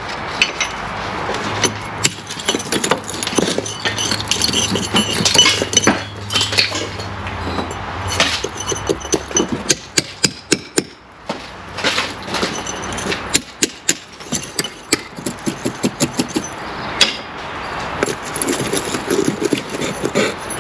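A club hammer knocks out old mortar and brick pieces from a course of brickwork, in irregular sharp strikes. Loose brick fragments clink and clatter as they come away, thickest around the middle.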